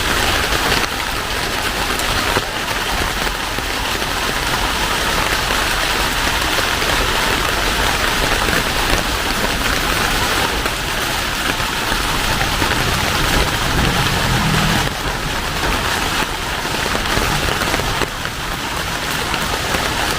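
Heavy rain pouring steadily, a dense even hiss of drops hitting the ground and surfaces around.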